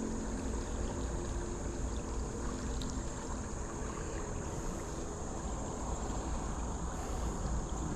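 Creek water running steadily, with a constant high-pitched chirring of insects over it.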